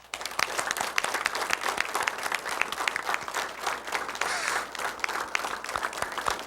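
An audience applauding: dense, steady clapping that starts abruptly.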